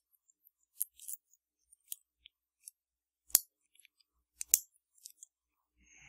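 Scattered small metallic clicks from a Louis Vuitton TSA luggage lock being worked from the back to pull aside its locking dog (shiving), with the two loudest clicks about three and a half and four and a half seconds in.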